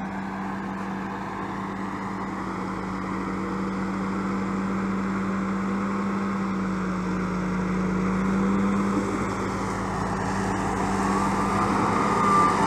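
Deutz-Fahr tractor engine running steadily while pulling a Krone mower through a field of alfalfa, getting gradually louder as it comes closer. A higher whine joins about eleven seconds in as the tractor and mower pass close by.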